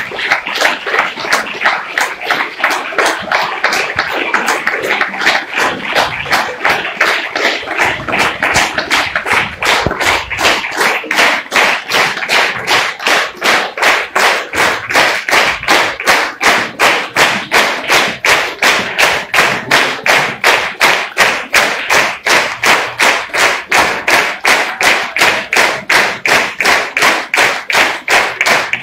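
Theatre audience applauding, the claps falling into a steady rhythm in unison at about three claps a second. After the first few seconds the rhythmic claps grow sharper and more even.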